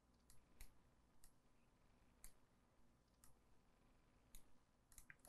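Faint, scattered computer mouse clicks, irregular and about one or two a second, over near-silent room tone.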